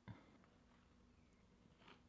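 Near silence: faint room tone with a steady low hum and one soft knock just after the start.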